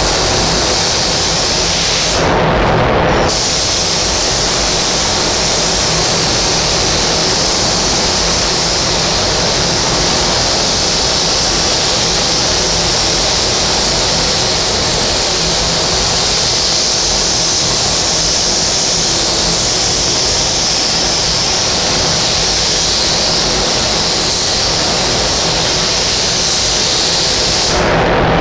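A 3M Accuspray HVLP spray gun hissing steadily as compressed air atomises paint, with a short break about two seconds in; the hiss cuts off near the end.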